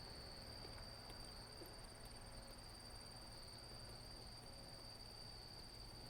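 Faint, steady, high-pitched insect trill over an otherwise quiet outdoor background.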